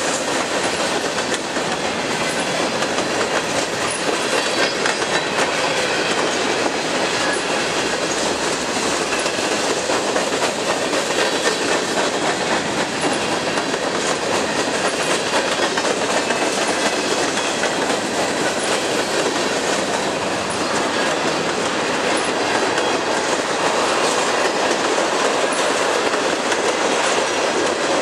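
Freight train of covered hoppers and tank cars rolling past at speed: a steady rumble of the cars, with the wheels clicking over the rail joints.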